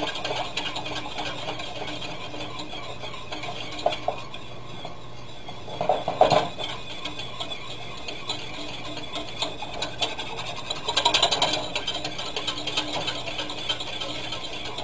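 Rapid stirring of gravy in a stainless steel saucepan: the utensil scrapes and clicks quickly against the pan's sides and bottom, with louder spells about six and eleven seconds in. The gravy base is starting to thicken as it is stirred over the heat.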